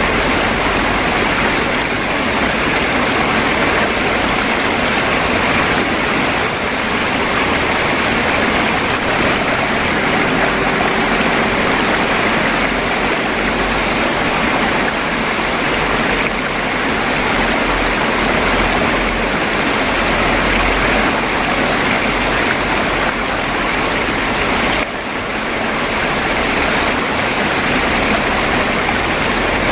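Water flowing and babbling over a stream bed: a steady, continuous rush, with a short drop in level about three-quarters of the way through.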